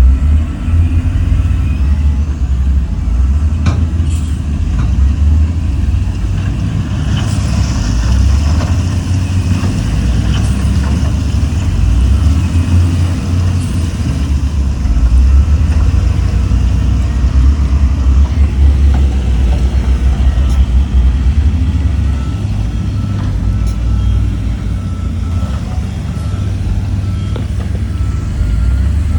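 Heavy diesel engine running steadily with a deep rumble, with a few brief clanks.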